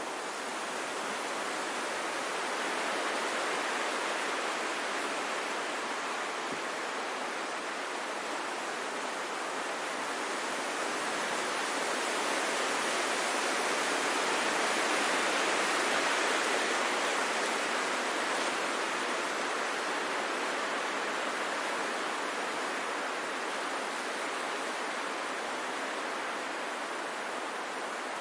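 Wind blowing through forest trees as a steady rushing noise that swells slowly to a peak about halfway through, then eases off.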